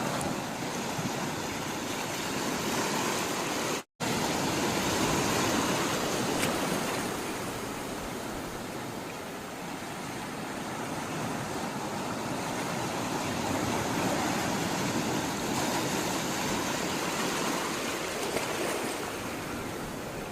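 Sea water rushing and washing in a steady, even wash that swells and eases slowly, cut by a brief dropout to silence about four seconds in.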